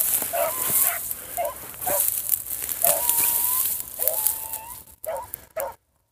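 Rabbit hounds baying on a trail: a run of short, quick barks, then two long drawn-out howls. The sound drops out briefly near the end.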